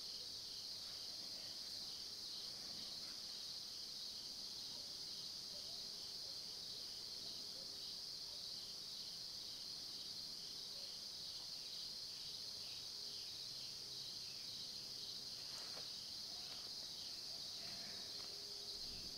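Steady insect chorus in late-summer woods: a continuous high-pitched trill with a faint regular pulse. There is one faint click late on.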